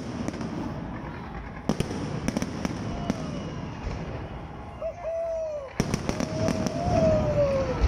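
Aerial fireworks display: irregular sharp bangs over a constant crackle of bursting shells. A long, wavering tone sounds near the end.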